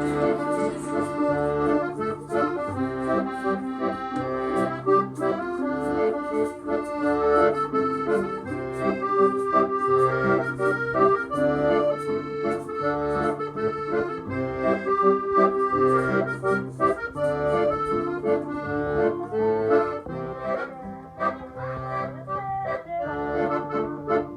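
Instrumental background music with sustained chords over a steady, repeating bass line.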